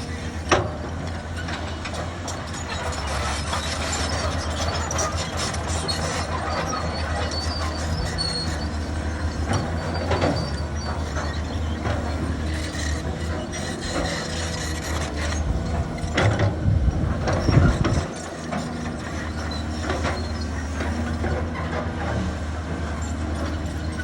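Excavator's diesel engine running steadily, with metallic clanks and squeaks from the arm and bucket as it moves soil. There is a sharp knock about half a second in, and a louder stretch of clattering near the end that stops abruptly.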